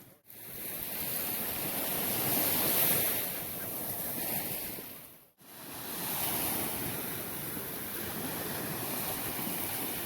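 Ocean surf washing onto the beach, with wind buffeting the microphone; the sound drops out briefly twice, near the start and about halfway through.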